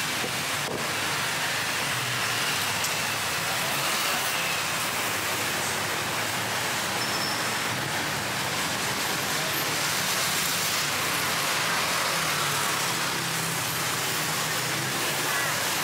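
Steady noise of busy city road traffic, cars running along a multi-lane street.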